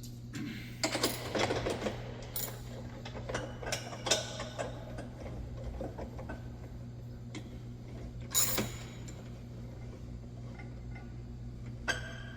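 Intermittent metallic clicks, knocks and scrapes as a replacement bumper is lifted and shifted into line on its mounts, with a sharper knock about eight seconds in, over a steady low hum.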